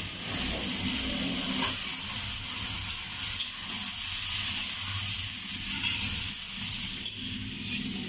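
Chopped chicken liver and gizzards sizzling in hot oil in a metal wok as a steady hiss, just added on top of sautéed onion, ginger and garlic, with faint knocks of a metal spatula stirring.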